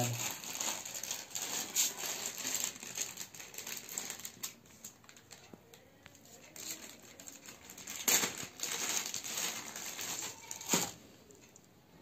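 Clear plastic accessory bag crinkling and cables clicking as they are handled, with two sharper clicks, one about eight seconds in and one near the end.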